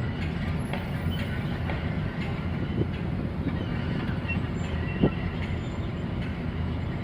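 Long-reach excavator's diesel engine running steadily with a low rumble, with a couple of sharp metallic knocks from the machine, the louder one about five seconds in.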